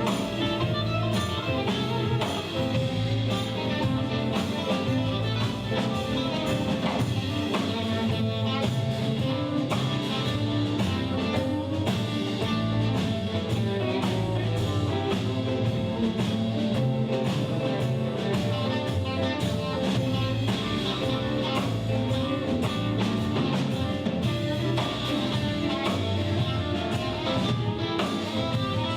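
Blues band playing live: guitar over a drum kit, a full steady groove.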